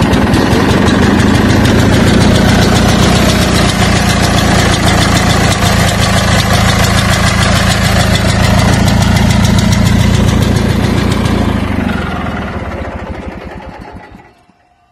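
Briggs & Stratton Vanguard V-twin engine of a Craftsman GT6000 garden tractor running steadily just after starting, with an even rapid firing beat. Near the end it dies away to nothing.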